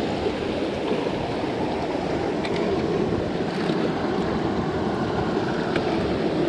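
Small mountain brook running and splashing over granite boulders, a steady wash of water close by. A few faint clicks sound now and then.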